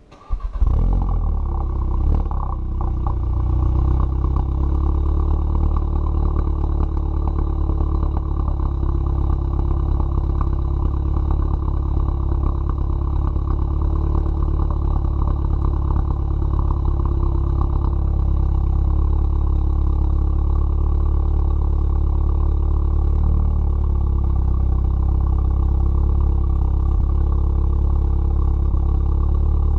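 VW Mk7 GTI's 2.0-litre turbocharged four-cylinder, fitted with a catless downpipe, starts up with a brief flare of revs, then settles into a steady idle.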